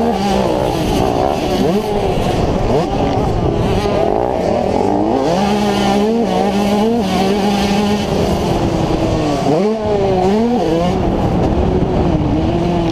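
Yamaha YZ125's 125 cc two-stroke single-cylinder engine racing under hard throttle, the revs climbing and dropping with the throttle and gear changes, with sharp climbs in pitch several times.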